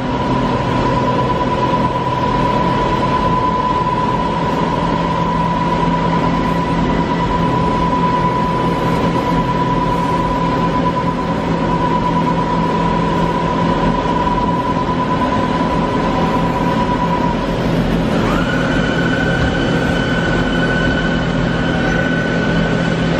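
Doosan DBC130II CNC horizontal boring mill running, a steady machine hum with a high whine over it. About 18 seconds in, the whine glides up to a higher pitch and holds there.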